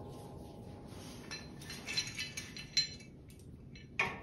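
Light metallic clinks of a winch hook and the plow's steel mounting hardware being handled, a few small ticks, then a louder clank just before the end.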